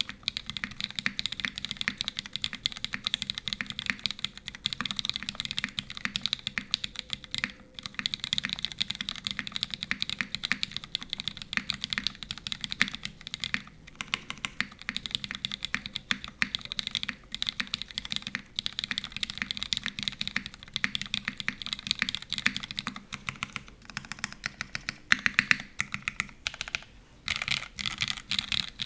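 Fast continuous typing on a custom mechanical keyboard with lubed linear Cherry MX Retooled Black switches in a full aluminium plate with no foam, under GMK keycaps: dense rapid keystroke clacks with a few brief pauses. The strokes become sparser and more spaced out near the end.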